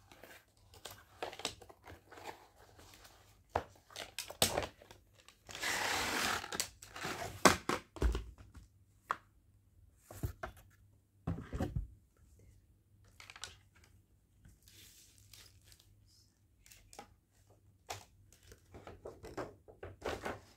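A cardboard box being opened by hand, with scattered knocks and taps against the box and a tearing, scraping rush about six seconds in. Near the end comes softer rustling, as clear plastic wrapping is handled.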